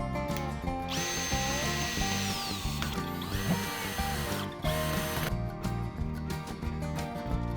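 Electric drill running in bursts over background music: it starts about a second in with a high whine, slows and drops in pitch briefly, spins back up, stops, then runs once more for under a second.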